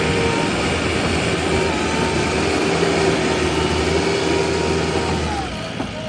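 JCB 3DX backhoe loader's diesel engine running hard and steady as the front loader bucket pushes into soil, with a steady whine on top; about five and a half seconds in the pitch drops and the sound eases off.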